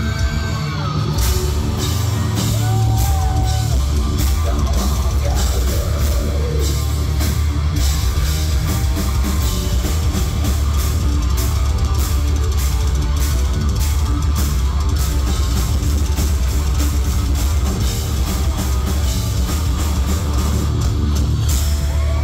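Live heavy metal band playing an instrumental passage: distorted electric guitars, bass and a fast, dense drum kit with heavy low end. A lead guitar bends notes a few seconds in.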